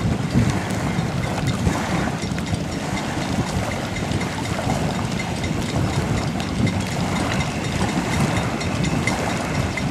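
Wind buffeting the microphone, a steady, gusting rush.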